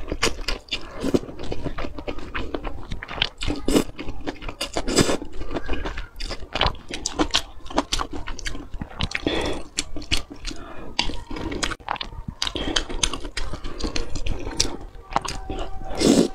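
Close-miked slurping and chewing of spicy instant noodles: wet mouth clicks throughout, with repeated louder slurps, the strongest near the end.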